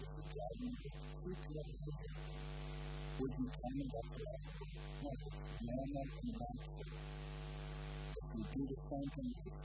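Steady electrical mains hum from the sound system, with a voice speaking in short, soft phrases over it.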